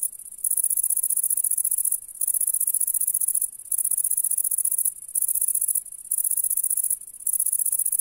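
Grasshopper stridulating: a high, fine buzzing chirr sung in phrases of about one to one and a half seconds, each broken by a short pause.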